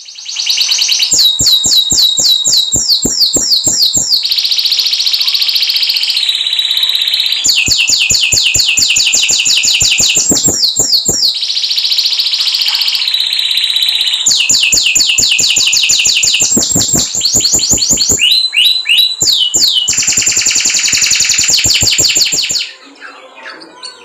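Domestic canary singing a long, loud song of fast trills, each a rapid run of repeated notes, switching every second or two between trill types and denser buzzy rolls. The song stops shortly before the end.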